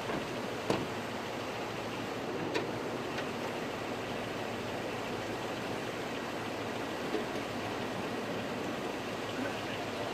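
Steady outdoor background noise, an even hiss like distant traffic or wind, with a few sharp clicks: one under a second in, others around two and a half, three and seven seconds in.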